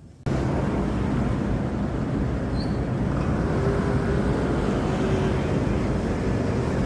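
Steady low rumble of city street traffic noise, cutting in abruptly just after the start.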